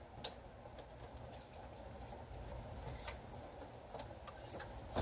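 Steady rain heard through a partly open storm door, with a few small clicks and knocks from the storm door's glass panel being handled; the sharpest click comes just after the start.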